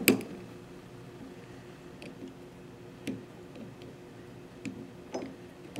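Scattered small clicks and taps of metal hardware being handled: hex nuts being threaded by hand onto a servo motor's mounting screws inside the motor-mount housing, over a faint steady hum.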